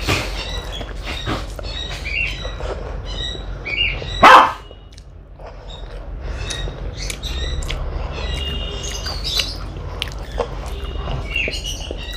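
Eating sounds, small clicks of chewing and handling food, with birds chirping in the background. A single loud dog bark comes about four seconds in.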